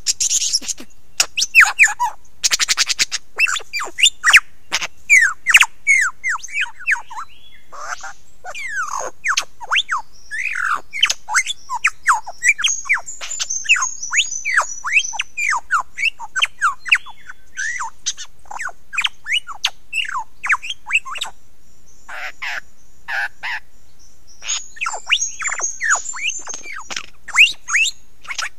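Lyrebird singing close by: a fast run of mimicked calls, many quick downward-sweeping whistles with bursts of higher chattering notes in the middle and near the end, copying forest birds such as whipbirds, logrunners and parrots.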